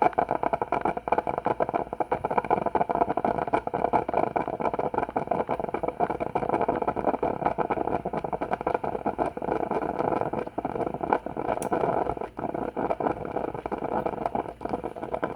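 Coffee machine running, its pump pushing water through a partly cleaned water tube: a steady, fluttering noise. The tube is cleaner but still not fully clear.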